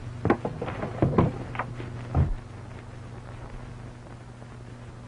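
A quick run of sharp knocks and bangs lasting about two seconds, the last and deepest thump a little after two seconds in, then only the steady low hum of an old optical film soundtrack.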